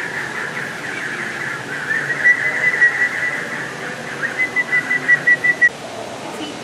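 Whistling: two runs of short, quick notes on one high pitch, each run a second or more long, over a steady high-pitched background hum.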